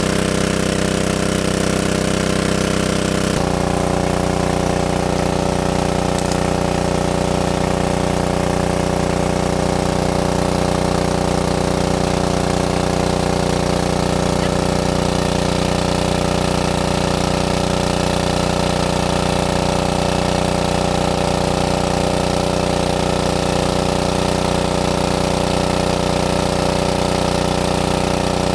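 A small engine running at a steady speed. Its tone changes abruptly about three seconds in and then holds steady again.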